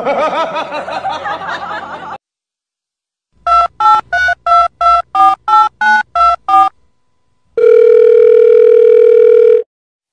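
Telephone keypad tones: about ten short two-note beeps in quick succession, then one long steady beep held for about two seconds, a phone-dialing sound effect played as fingers press a Pomeranian's paw pads like buttons. Before them, a wavering cry lasts about two seconds and stops abruptly.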